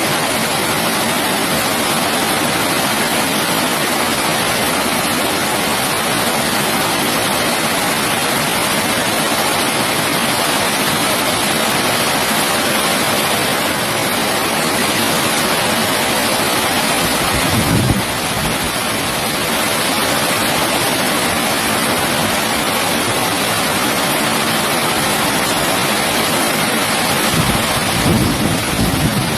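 Heavy rain falling steadily, a dense even hiss. Two brief low rumbles break in, one about two-thirds of the way through and one near the end.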